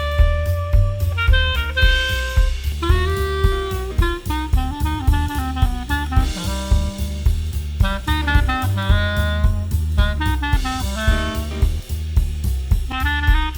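Swing jazz music: a saxophone plays a fast melody of short notes over a steady drum-kit beat and bass.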